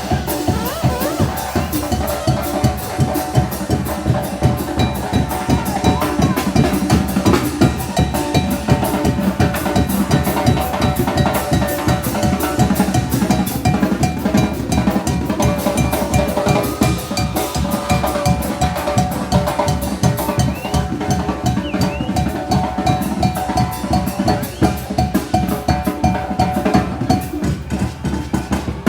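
Oaxacan brass band (banda) playing a fast muertero/calenda carnival rhythm: bass drum and snare drive a steady beat under held wind-instrument melody lines.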